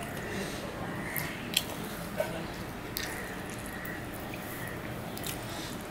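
Fingers mixing rice and curry on a steel plate: soft squishing, with a few sharp clicks spread through the first half.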